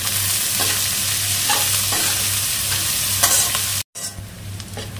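Chopped onions sizzling loudly in hot oil and ghee in a kadai, stirred with a metal spatula that scrapes the pan a few times. The sizzle cuts out abruptly just before the end, then goes on quieter.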